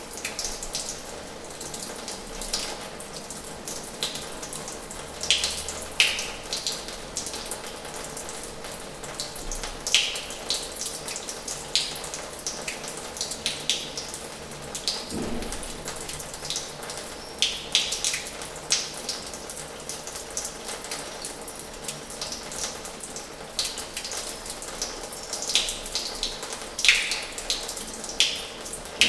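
Water running from the tap of an old washhouse and splashing into its basin: a steady rushing stream broken by irregular sharp splashes and drips.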